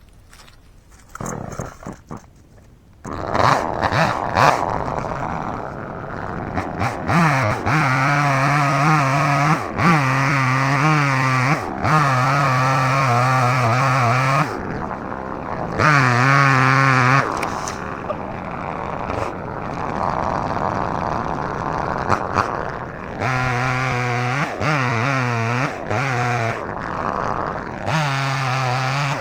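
Small gas chainsaw that starts about three seconds in, then runs at full throttle in repeated stretches of a few seconds, its pitch dipping and wavering between them as it cuts into a tree.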